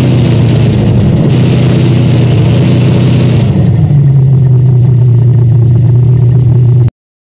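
UMP dirt stock car's V8 engine heard loud from inside the cockpit. It runs hard, then its note falls to a lower steady pitch about three and a half seconds in as the car slows after its timed qualifying lap. The sound cuts off suddenly near the end.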